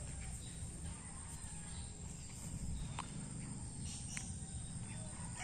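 Rural outdoor ambience: a faint steady insect drone with a few short bird chirps about three and four seconds in, over a low rumble of handling noise from a walking handheld camera.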